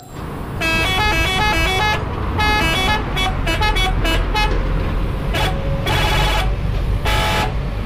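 Double-decker bus running as it drives past on the street, a steady low engine rumble. Over it come runs of short high tones that step up and down in pitch like a little tune, in the first few seconds and again near the end.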